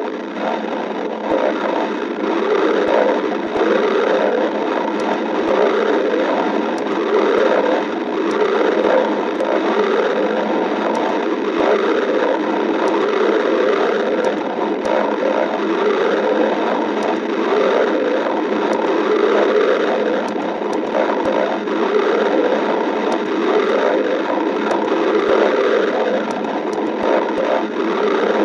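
Stomach growling: a continuous, uneven gurgling and rumbling of a hungry stomach, with scattered faint clicks.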